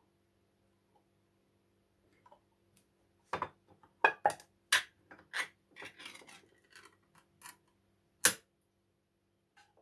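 Ring-pull tin of John West tuna being opened: a run of sharp metallic clicks and snaps as the pull-tab lid is levered up and peeled back off the can, starting about three seconds in, with a last sharp click near the end.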